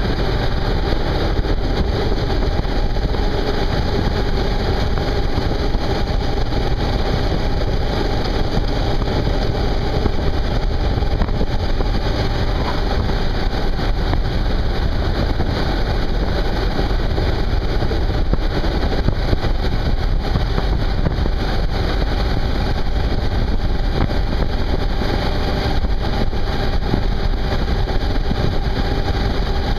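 Suzuki V-Strom 650 ABS V-twin engine running at a steady cruise, mixed with steady wind and road noise.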